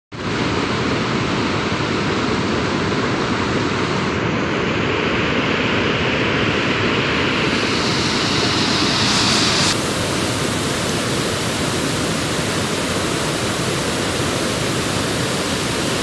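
Steady, loud rush of a waterfall, white water pouring down a sloping rock slab. The hiss shifts slightly about two-thirds of the way through.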